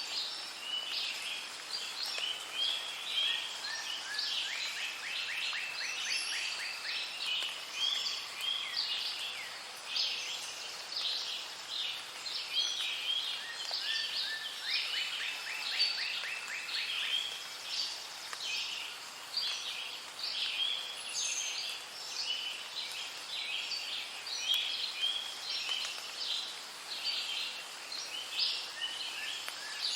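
Many songbirds singing and chirping together in a dense chorus of short, high calls. A rapid trill of quickly repeated notes stands out twice, about five and about fifteen seconds in.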